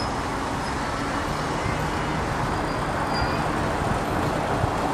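Steady running noise of a ride-on miniature park train moving along its track.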